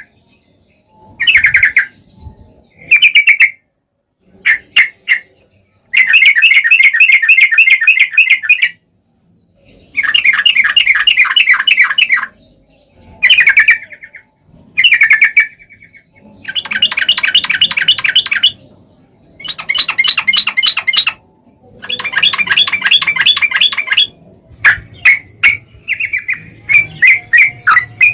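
Yellow-vented bulbul (trucuk) chattering loudly in repeated bouts of fast, bubbly notes, each bout a second or two long with short pauses between, some only brief calls.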